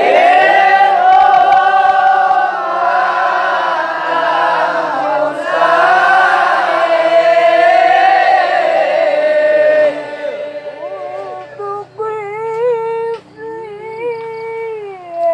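Sholawat, Islamic devotional singing in Arabic: several voices sing together for about ten seconds, then a single voice carries on alone with long held notes and ornamented turns.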